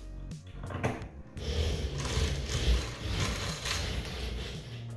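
Corrugated plastic flexible dust-collection hose being handled and pulled down, rustling and scraping, after a few light knocks.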